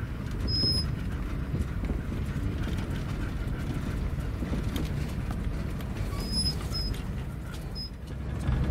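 Class C motorhome crawling along a rough dirt road, heard from inside the cab: a steady low engine and tyre rumble, with scattered knocks and rattles from the rig as it rides over the ruts.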